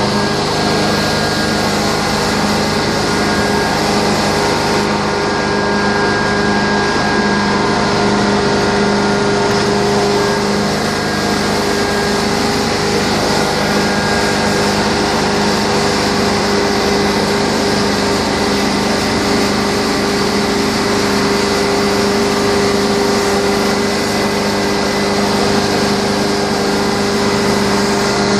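Rotary carpet-cleaning extractor working across carpet: its electric motor spins the cleaning head while suction pulls through the attached vacuum hose. It makes a steady mechanical hum with a hiss of rushing air.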